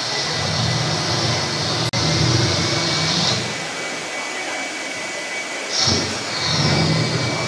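Hand-held hair dryer running, a steady whir and rush of air, aimed close at wet footprints to dry them. The air noise eases off about three seconds in and comes back strongly near the end, with a split-second dropout about two seconds in.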